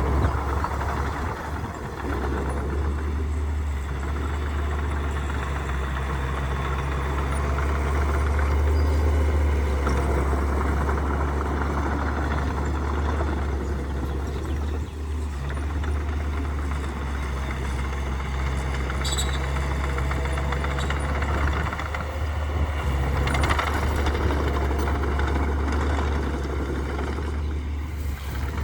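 Heavy diesel earthmoving machinery running steadily: a deep, continuous engine drone that swells and eases a little without stopping.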